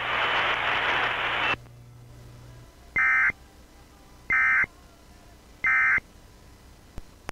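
Steady radio hiss that cuts off about one and a half seconds in, then three short, identical bursts of Emergency Alert System digital data tones, evenly spaced about a second and a half apart: the end-of-message code that closes an EAS alert. A faint click comes near the end.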